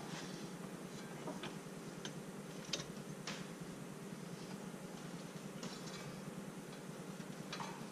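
Faint, scattered clicks and light metal taps from a wrench on the belt tensioner as the drive belt is worked back onto the pulleys, over a steady low background hum.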